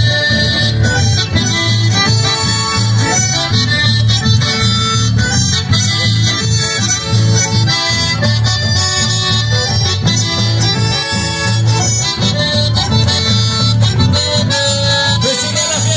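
Live instrumental dance music: an accordion carries the melody over strummed acoustic guitar and a steady, pulsing bass beat.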